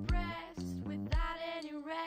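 Background pop song: a woman singing over a steady beat, with a kick drum about once a second.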